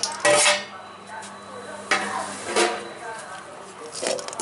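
Metal scraping and clinking as a metal plate is tipped and scraped against the rim of a metal pot, with two loud scrapes right at the start. Then a ladle stirs fried cashews and raisins through crumbly sweet aval puttu, giving softer scrapes against the pot.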